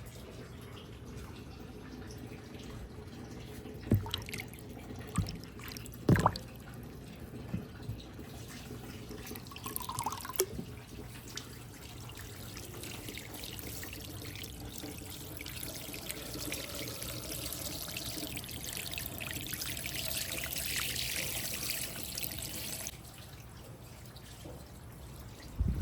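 Water trickling and dripping through a toy water marble run, with several sharp clicks in the first half. A louder rush of flowing water builds through the middle and cuts off suddenly about three seconds before the end.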